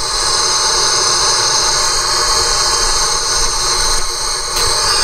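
Steady rushing hiss of air flowing into a pressurised Mark VIIIc pressure suit and helmet, with a short click near the end.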